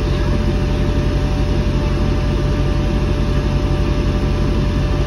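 Semi-truck's diesel engine running, heard inside the cab as a steady low drone.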